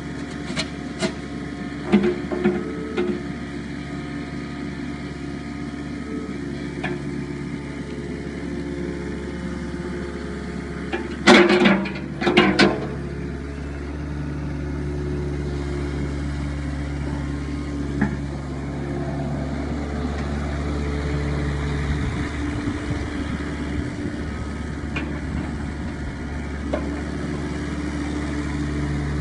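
Hitachi ZX-30 mini excavator's diesel engine running steadily while the boom and bucket are worked, with a few light clicks early on and a loud cluster of metal clanks about eleven seconds in. The engine note grows a little louder in the second half as the machine works its hydraulics and moves on its tracks.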